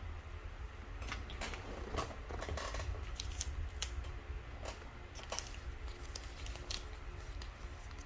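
Irregular sharp clicks and light clatter, most of them between about one and seven seconds in, over a steady low hum.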